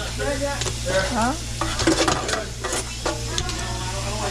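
Tap water running into a stainless-steel stockpot of freshly caught sea snails as they are stirred and rinsed, the shells clicking and clattering against each other and the pot over a steady hiss of water.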